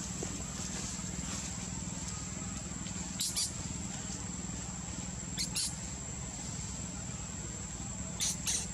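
Forest ambience: a steady high-pitched insect drone, with three short pairs of sharp high chirps from a small animal or bird, about three seconds in, about five and a half seconds in, and near the end.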